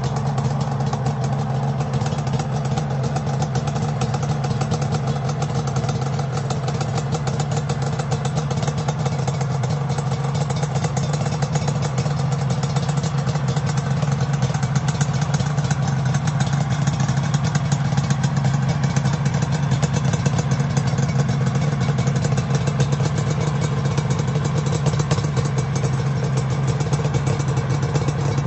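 Suzuki GT750's water-cooled two-stroke three-cylinder engine idling steadily through its exhaust, with an even, rapid pulse.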